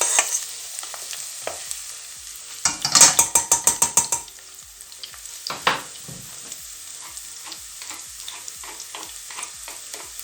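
Onions sizzling as they fry in oil in a pan, slightly golden and done. About three seconds in comes a quick run of about ten ringing clicks, the loudest sound, with a few single clicks after.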